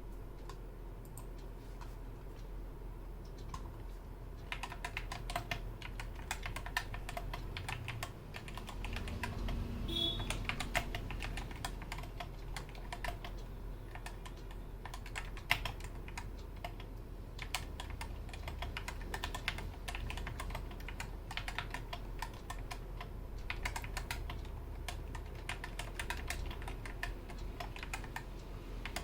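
Typing on a Skyloong SK61 60% mechanical keyboard with Gateron optical switches. There are a few scattered keystrokes at first, then steady, fast typing from about four seconds in, over a low steady hum.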